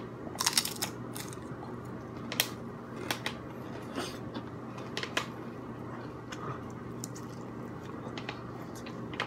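A person biting and chewing food close to the microphone, heard as irregular sharp mouth clicks and crunchy smacks, over a steady low hum.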